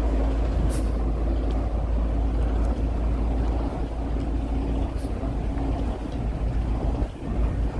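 Street ambience dominated by the steady low rumble of road traffic, with two brief sharp ticks, one about a second in and one about five seconds in.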